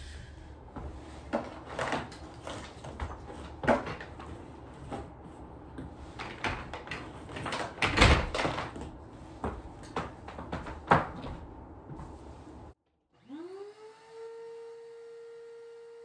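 Clunks and clatters of a stainless-steel wet/dry shop vacuum being handled and set up. After a short break, its motor is switched on: a whine rising for about a second, then holding a steady pitch.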